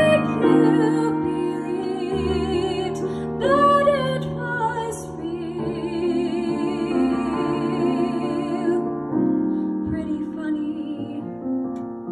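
A female voice sings long held notes with vibrato over piano accompaniment. The voice stops about nine seconds in and the piano continues alone.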